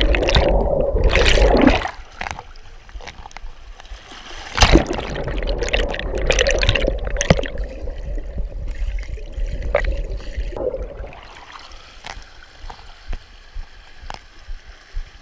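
Fast creek current churning and bubbling around a submerged action camera. It is loudest in the first two seconds and again from about four and a half to seven and a half seconds, and dies down to quieter splashing after about eleven seconds.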